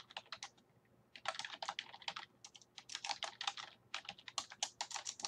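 Computer keyboard typing in quick runs of key clicks, with a short pause about a second in.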